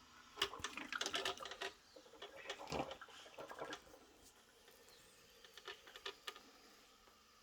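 Quick clusters of light clicks and rattles over the first four seconds, then a couple of single clicks and near quiet, from the hard plastic parts of a Moulinex coffee maker being handled.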